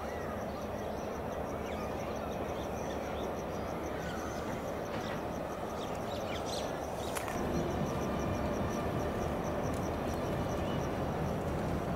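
Birds chirping over a steady outdoor background, with a high call repeating quickly throughout. About seven and a half seconds in, the low rumble of a train comes in and grows louder.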